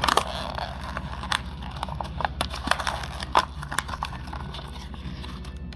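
Plastic blister packaging and its cardboard card being cracked and torn open by hand to free a die-cast toy car: a burst of crinkling near the start, then a string of sharp clicks and snaps.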